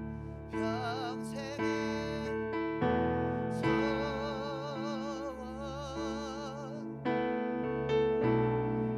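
Slow worship music: a keyboard holding sustained chords that change every second or two, under a melody line held with vibrato.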